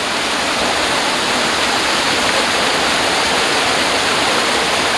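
Steady, loud rush of stream water pouring over rocks.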